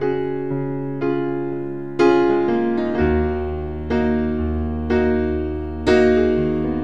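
Background piano music: slow chords struck about once a second, each fading away before the next, with a low bass note joining about three seconds in.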